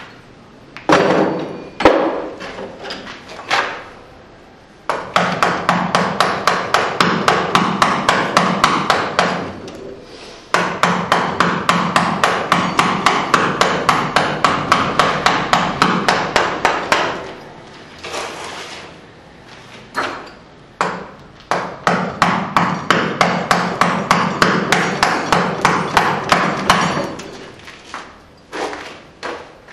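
Hammer driving a steel chisel into a block of Espeil stone in direct carving. Sharp, even strikes come about three or four a second in runs of several seconds, with short pauses and a few single blows between the runs.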